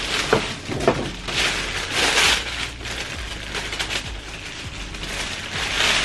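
Tissue paper and a large paper shopping bag rustling and crinkling as a wrapped tote bag is pulled out, in several bursts, the loudest around two seconds in and near the end, with two brief squeaks in the first second.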